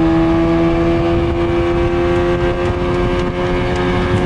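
55-horsepower outboard motor running at high throttle under load, pushing a boat. Its pitch holds steady and creeps slightly higher over a rushing noise. It runs smoothly with no sign of trouble.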